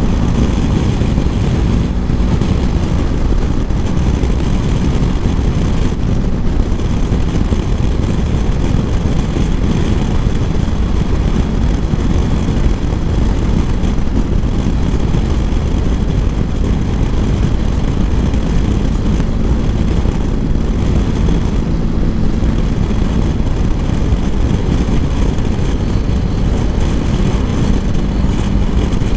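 Steady wind rush on the microphone with the drone of a BMW R1250 GSA motorcycle's boxer-twin engine underneath, riding at a constant road speed.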